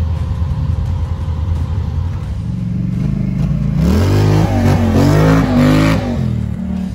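Off-road vehicle engine running steadily at low revs, then a quad ATV's engine revving up and down hard as it accelerates past on a dirt track, loudest for a couple of seconds near the end.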